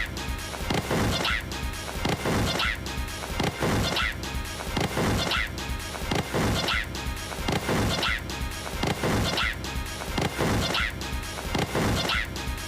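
Background music with a steady beat, built on a short percussive loop that repeats about every one and a half seconds.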